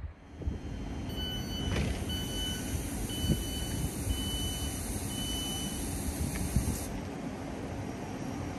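Electric multiple-unit train approaching from a distance: a steady rumble and hiss, with a high, on-and-off tone over several seconds that cuts off suddenly about seven seconds in.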